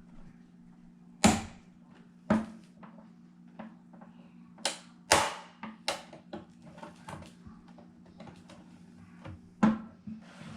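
Plastic snap-clips of an all-in-one computer's back cover clicking and snapping loose as the case is pried apart, with several sharp snaps and many smaller ticks and rattles of plastic between them.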